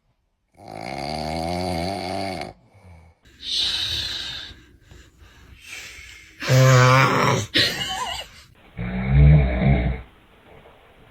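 A man snoring, four long snores with short pauses between them. The loudest snore comes about two-thirds of the way through.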